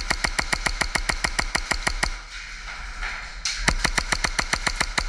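HPA-powered Hi-Capa airsoft pistol firing fast strings of semi-automatic shots, about eight a second, with a pause of about a second and a half near the middle.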